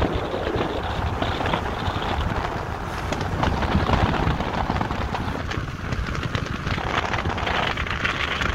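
A car driving along a road, with tyre and road rumble and wind buffeting the microphone in crackling gusts.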